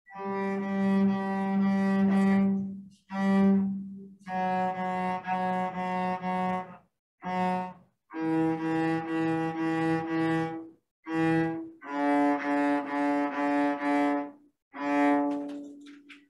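Cello playing a D major scale in short, stopped bow strokes to the 'Mississippi hot dog' rhythm. Each note is bowed as a quick group of repeated strokes, with a brief break before the next pitch. The last note is held longer near the end.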